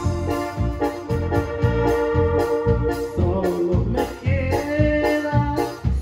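Instrumental passage of a live band: an electronic keyboard plays an organ-like melody of held notes over a steady bass-and-drum beat.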